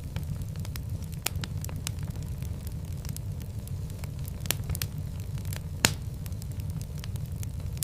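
Fire burning in a fireplace: a steady low rumble of flames with frequent sharp crackles and pops, the loudest pop about six seconds in.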